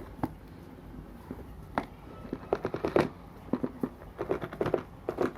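Phone box packaging being handled and opened: a run of sharp crackles and clicks, a few single ones at first, then quick clusters from about halfway.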